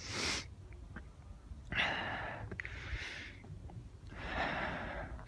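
Breathing of a person walking uphill: four long breaths, each under about a second, with faint ticks between them.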